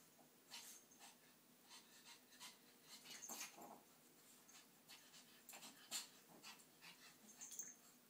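Faint sounds of Maltese and Sheltie puppies playing on a bed: soft panting and snuffling, with short scattered rustles of the comforter.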